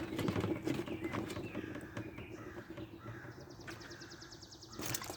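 Knife slicing smoked brisket on a cutting board: scattered light taps and scrapes, with a quick run of fine, even ticks about three and a half seconds in.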